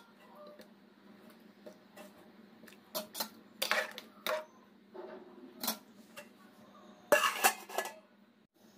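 A slotted steel ladle clinks and scrapes against a steel cooking pot while curry is stirred, in scattered sharp knocks. About seven seconds in, a louder run of metal clanks comes as the steel lid is put on the pot. A steady low hum runs underneath.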